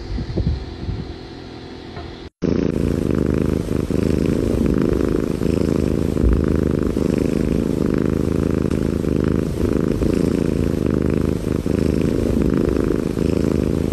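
A kitten purring, loud and steady, while being stroked on the chest; it starts suddenly about two and a half seconds in.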